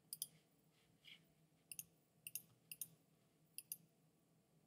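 Computer mouse clicking five times, each click a sharp press quickly followed by its release, spaced about half a second to a second and a half apart.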